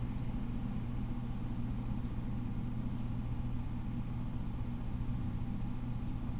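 Steady low mechanical hum with a constant pitch and no change in level.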